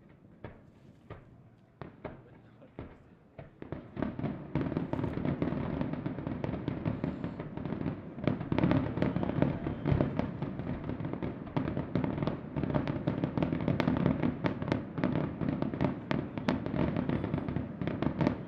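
Aerial fireworks going off: scattered single bangs at first, then about four seconds in a dense, rapid barrage of bursts and crackling.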